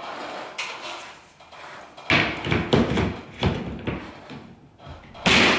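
Round white plastic cover plate of a bathroom exhaust fan being handled and pressed up onto the fan housing in the ceiling. It makes a soft rustle, then a run of sharp plastic knocks and clicks from about two seconds in, the loudest near the end as it is seated.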